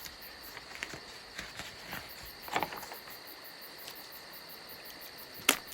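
Jungle ambience sound effect with insects chirping steadily in a fast, even rhythm, with a few short soft rustles about one to three seconds in and a sharp click near the end.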